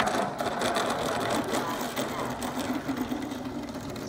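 Small O.S. methanol nitro glow engine of an RC plane running steadily at low throttle while the plane taxis.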